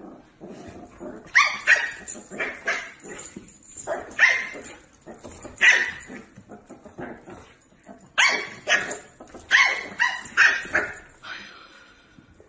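Puppy yapping at a husky over its food bowl: a dozen or so short, high-pitched barks in clusters, dying away near the end. It is food guarding.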